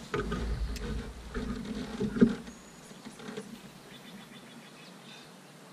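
A fishing rod is handled and cast from an aluminum boat: a low rumble and several knocks on the hull, the loudest about two seconds in. After that comes faint quick ticking as the fishing reel is cranked to take up line.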